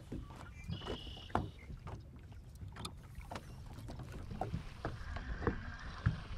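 Water lapping and slapping against a bass boat's hull, with scattered small knocks and a low rumble of wind underneath.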